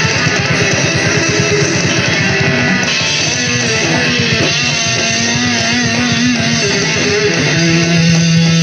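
Loud distorted electric guitar played through an amplifier, with wavering bent notes in the middle and a low note held steady near the end.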